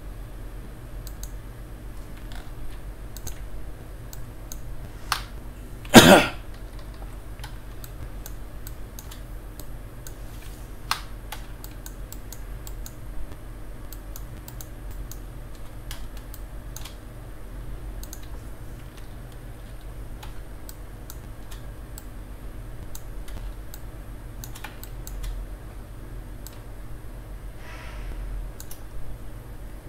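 Scattered computer keyboard and mouse clicks over a steady low hum. One much louder, short noise comes about six seconds in.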